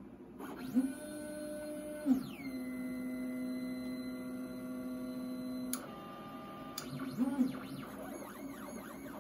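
Stepper motors of a LowRider 3 CNC plasma table whining as the axes move the unlit torch through a dry run of a test program. The pitch glides as the motors speed up and slow, holds steady for a few seconds, and near the end wavers up and down in loops, with a few light clicks.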